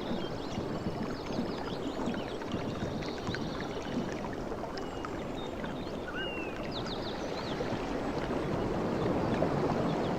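Sea waves washing and lapping on the shore, a steady rush of water that swells a little louder near the end.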